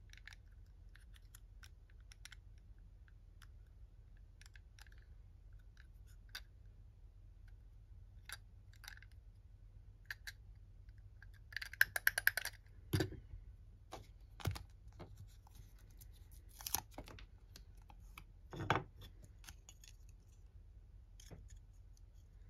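Small hard-plastic toy parts clicking and tapping as they are handled and fitted together: scattered light clicks, a quick rattle of clicks a little past the middle, then a few sharper knocks.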